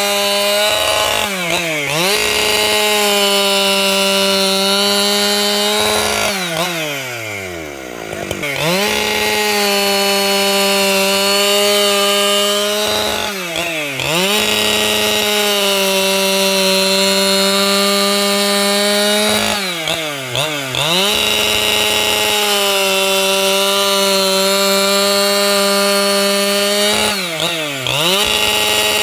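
585XP two-stroke chainsaw held at high revs while ripping lengthwise through timber. Its pitch dips briefly and recovers every six to seven seconds, with one longer drop toward idle and back about a quarter of the way in.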